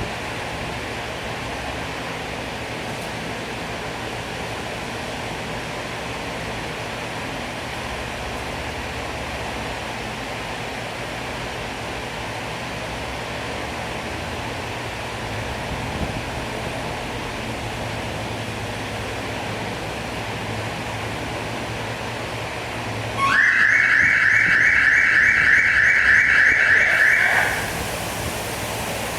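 A steady hiss of background noise, then near the end a car alarm siren goes off loudly with a rapidly warbling high tone for about four seconds before cutting off.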